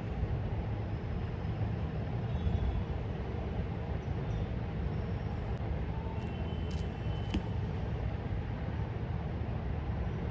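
Steady low hum of city traffic.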